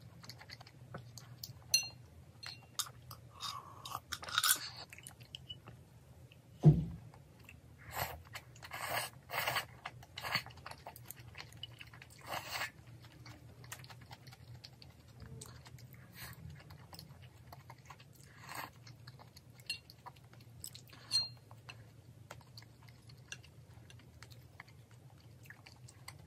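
Close-miked eating: a person chewing, with crunchy bites and small clicks, over a low steady hum. One sharp thud about seven seconds in is the loudest sound.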